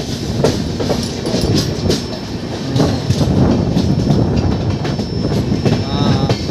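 Passenger train running, heard from inside a coach with the window open: a steady rumble of the wheels with sharp clacks as they pass over rail joints.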